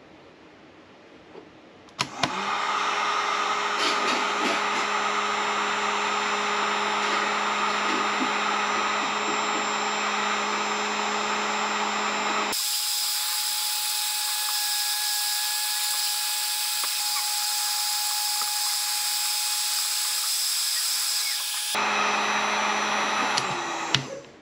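Electric heat gun switched on about two seconds in, running with a steady fan whir and hum while it shrinks Kuject solder-seal sleeves over spliced trolling-motor wires. Its tone changes abruptly about halfway, changes back near the end, and it stops just before the end.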